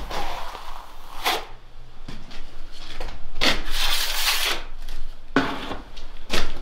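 A steel plastering trowel scraping wet levelling mortar on a wall, then being scraped clean against a second plastering tool: a series of separate scraping strokes, one longer stroke about halfway through.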